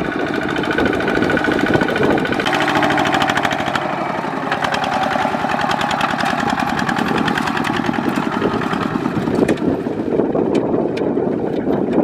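Kubota ZT155 two-wheel walking tractor's single-cylinder diesel engine running with a rapid, even firing beat; the sound changes character about two and a half seconds in.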